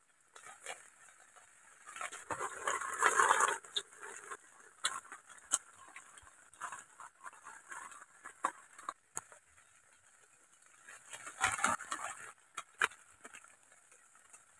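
Eating sounds: a spoon clicking and scraping on a metal plate of noodles, in irregular bursts with short pauses between.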